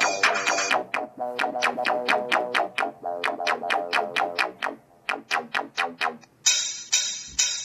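Electronic music with a synthesizer playing quick, evenly repeated notes, played back through the Nexus 6 phone's speakers, with almost no deep bass. The notes thin out about five seconds in, then come back brighter near the end.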